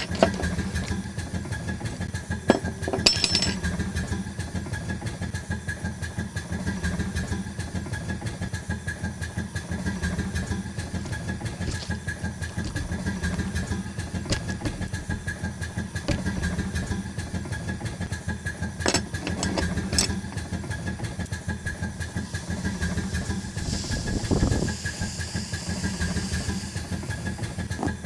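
Imitation steam-boat engine sound effect, emulating a worn-out machine: a fast, even chugging with a steady thin whine over it and a few sharp clicks. A hiss of steam joins in for a few seconds near the end.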